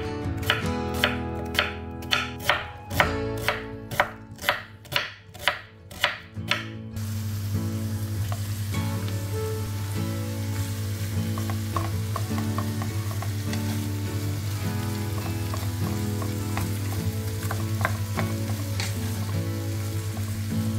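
A kitchen knife cutting through an onion onto a wooden chopping board, about two cuts a second. After about seven seconds it gives way to a steady sizzle of sliced onion and green beans frying in a nonstick pan, stirred with a wooden spatula.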